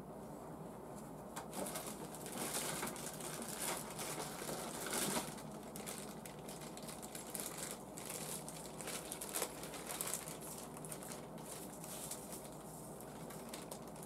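Clear plastic bag of small model-kit parts crinkling and rustling as it is handled, in irregular bursts that come and go.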